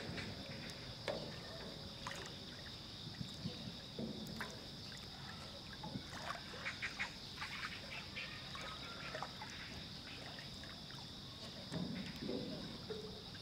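Water lapping and light knocks from a small narrow boat's hull as a person shifts his footing in it, over a steady high insect chorus.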